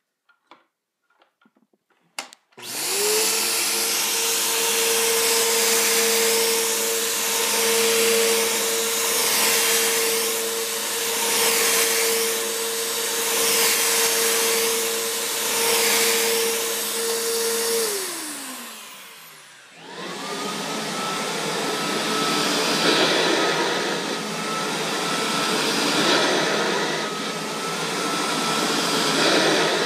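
Bissell PowerForce Helix upright vacuum cleaner switched on a couple of seconds in, running steadily, then switched off and winding down. A Kirby vacuum cleaner then starts, its whine rising to a higher steady pitch as it runs.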